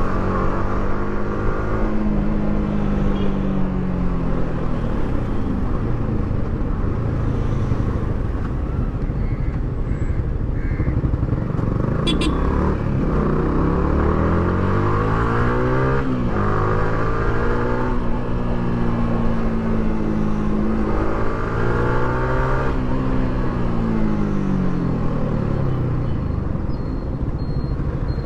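Yamaha R15 V3's single-cylinder engine through its stock exhaust, heard from the bike while riding. The pitch eases off, holds, then climbs steeply as the rider accelerates, dropping sharply at upshifts about two-thirds of the way through and again later, over steady wind and road rush.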